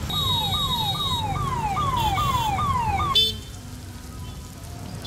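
Electronic siren sounding in a fast falling sweep, about two downward wails a second, for about three seconds, then cutting off suddenly. A low rumble runs underneath and carries on after it.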